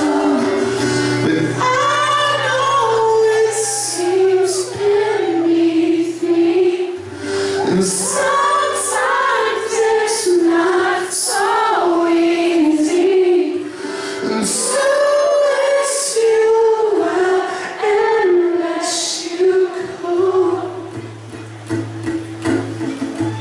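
Live acoustic rock performance: a high-pitched male voice singing over acoustic guitar.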